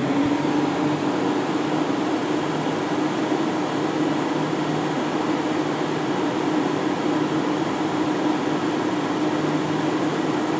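1970 Montgomery Ward Signature window air conditioner running on its high fan setting: a steady rush of air with a steady hum that comes up just after the start as the fan reaches full speed. The fan is the main sound, and the compressor is hard to hear.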